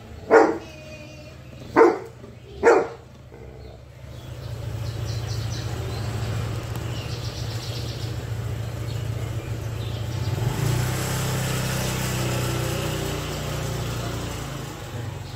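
A golden retriever barks three times in the first three seconds. Then a motor scooter's engine runs steadily as it rides away, getting louder about ten seconds in.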